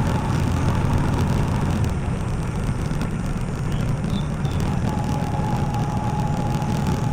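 Motorcycle running at a steady cruise, its engine drone mixed with wind rumble on the microphone.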